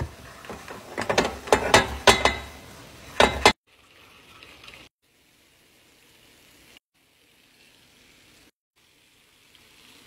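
Noodles sizzling in a non-stick frying pan while being stirred with chopsticks, the chopsticks clicking and knocking against the pan over the first three and a half seconds. After an abrupt cut, quieter sizzling continues in short clips.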